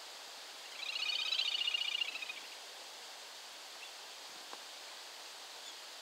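Little grebe giving its rapid, high-pitched trill for about a second and a half, over a steady outdoor hiss.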